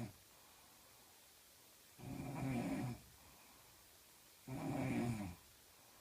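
A sleeping woman snoring. The tail of one snore ends right at the start, then come two snores, each about a second long, roughly two and a half seconds apart, with quiet breathing between them.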